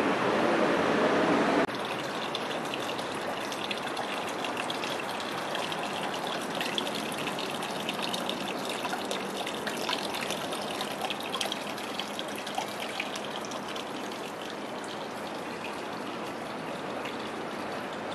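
Steady street noise for the first second or two, cut off suddenly, then water running from a dragon spout into a stone purification basin (temizuya), a steady splashing trickle that eases a little toward the end.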